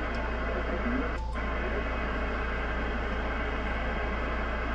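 HF transceiver receiving on the 10 m amateur band: steady static hiss from its speaker with a constant low hum underneath, the hiss dipping briefly about a second in.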